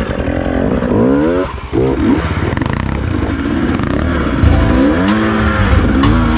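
Off-road motorcycle engine revving, its pitch rising and falling several times with each twist of the throttle.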